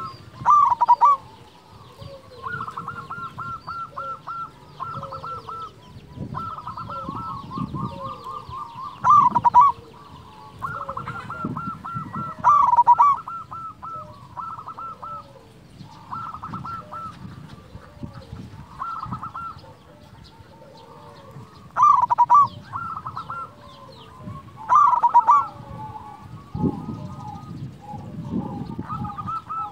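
Zebra dove (perkutut) cooing: runs of quick staccato coos, with five louder, fuller phrases spaced several seconds apart.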